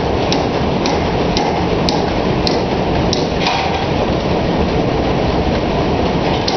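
Hammer blows ringing on a hot iron bar being forged, about two a second through the first half and then stopping, over a loud, steady machine rumble.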